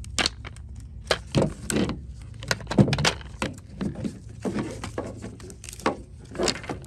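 Hard plastic of a Bissell CrossWave vacuum's motor housing being broken and pried apart by hand to free the motor: about a dozen irregular sharp cracks, snaps and knocks of plastic.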